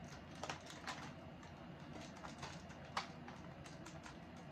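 Molded plastic clamshell lure package being handled and opened: a few light, sharp plastic clicks and crackles, the clearest about half a second, one second and three seconds in, over a low steady hum.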